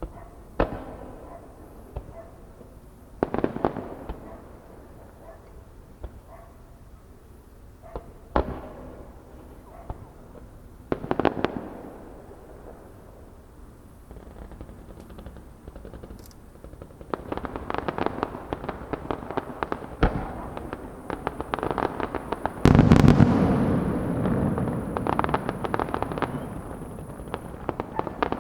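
Aerial fireworks display: single shell bursts a few seconds apart, then, from a bit past halfway, a dense run of rapid crackling reports. The loudest and deepest burst comes about three quarters of the way through.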